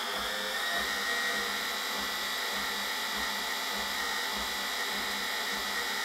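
Brushed washing-machine motor driving the drum through the belt, running with a steady electric whine that climbs a little in pitch just after the start and then holds, with a faint low pulse about twice a second. This is a test run after the speed-encoder magnet ring was fixed to the shaft, and it sounds alright.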